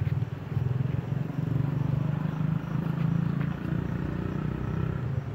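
A small engine running steadily, a low rumble with a fast even pulse.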